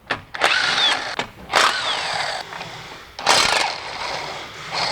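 Impact wrench running in three bursts of about a second each, whining as it spins, loosening and running out the three lower ball joint bolts.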